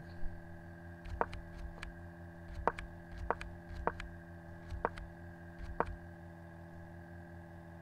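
A run of sharp single clicks, about seven at uneven spacing, as chess moves are stepped through one by one on a computer, over a steady electrical hum with many overtones.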